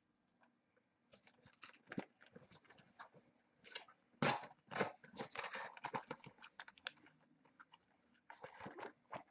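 A cardboard figure box being torn open by hand: irregular crackling and rustling of packaging, busiest from about four to six seconds in.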